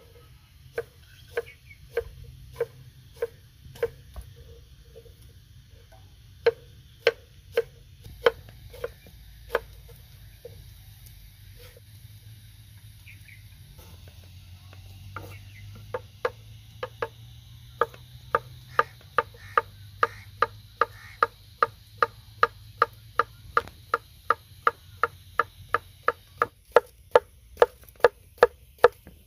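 Kitchen knife slicing onion and cucumber on a wooden chopping board: sharp knocks of the blade on the board. A slower run comes at about one and a half a second, with pauses, then a steady quicker run of nearly three a second from about halfway through.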